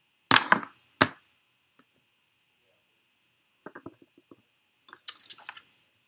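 Plastic ink pad and clear acrylic stamp block handled on a craft table: two sharp clacks in the first second, then a quick run of light taps a little past the middle as the stamp is inked, and a brief rustle near the end.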